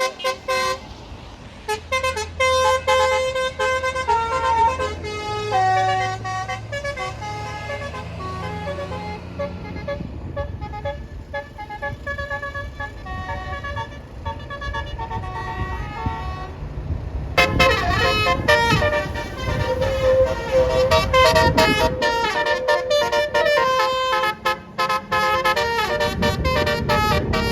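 Bus telolet basuri horn, a multi-trumpet horn playing a tune of stepped notes. About 17 seconds in it becomes louder and busier, with the rumble of the bus engine under it.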